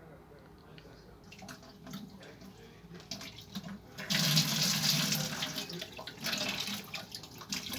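Air and water spurting from a disconnected flexible hose into a plastic bucket, starting suddenly about four seconds in and easing off near the end. This is trapped air being purged from a solar water heater's line as the water begins to come through.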